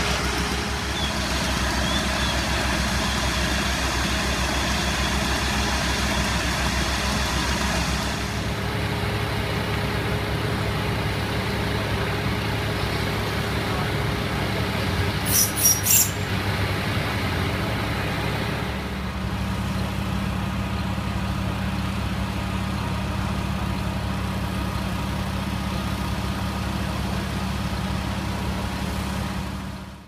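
Fire engine diesel engines running steadily at the scene. About halfway through, three short, sharp high-pitched hisses cut in over the engine hum.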